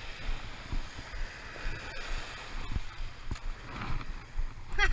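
Small waves washing in over a sandy beach, a steady hiss of surf, with wind buffeting the microphone in uneven low rumbles.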